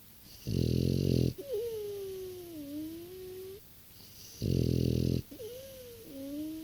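French bulldog snoring in its sleep: two loud, rattling snores about four seconds apart. Between them comes a thin, whistling wheeze that wavers up and down in pitch.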